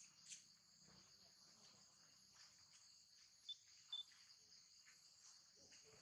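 Faint, steady chorus of insects droning, with two short high chirps about three and a half and four seconds in.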